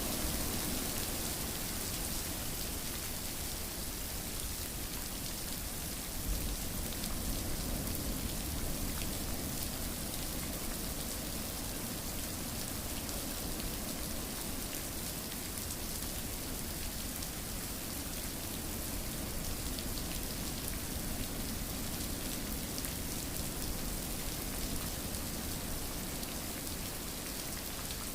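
Steady rain falling and pattering on a surface, an even hiss with many fine drop ticks and no lulls.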